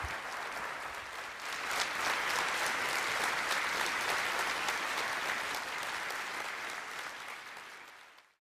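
Audience applauding. The clapping swells about two seconds in, then eases off and cuts off abruptly near the end.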